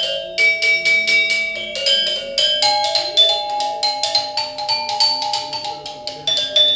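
Balinese gamelan gangsa, a bronze-keyed metallophone, struck with a wooden hammer-shaped mallet: a fast melody of single struck notes that ring on. There is a brief break just after the start.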